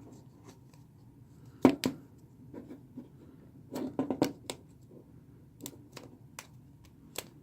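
Sharp plastic clicks and snaps as a phone's plastic midframe is pried off its glass panel by hand, irregular and scattered, the loudest pair a little under two seconds in and a cluster around four seconds in.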